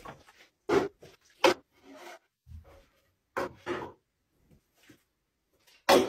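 Handling noise of boards and plastic water bottles being lifted and stacked on each other: a handful of short scrapes and knocks a second or so apart, the loudest near the end.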